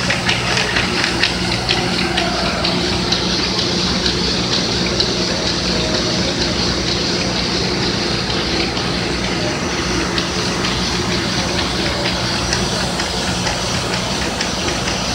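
Bobst Mistral 110 folder-gluer running at speed: a steady machine hum with rapid ticking, the ticking fainter after the first few seconds.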